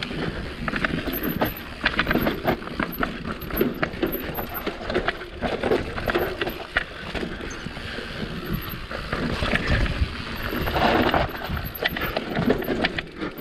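Mountain bike descending a rough dirt trail at speed: tyre noise on dirt and roots under a rapid, irregular clatter of knocks from the bike jolting over the ground, with a louder rush of noise about eleven seconds in.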